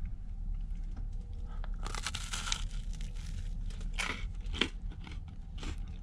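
Someone biting into and chewing a crisp toasted cheese sandwich: irregular crunches of the toasted bread, the strongest about two seconds in and a few more later, over a steady low hum.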